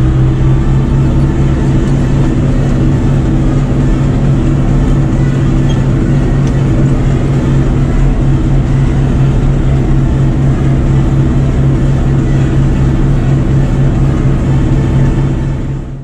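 Fendt tractor's diesel engine running at a steady speed, heard from inside the cab while driving. The sound fades out at the very end.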